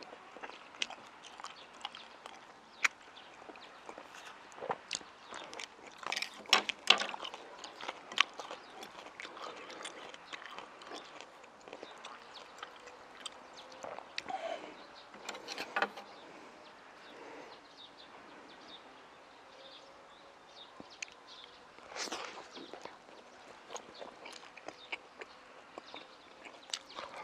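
Close-miked eating: chewing and mouth sounds on stir-fried pork and peppers and soft steamed buns, with chopsticks clicking against the dishes. The sounds come in irregular bursts, with the loudest clusters about six seconds in, around fifteen seconds and around twenty-two seconds.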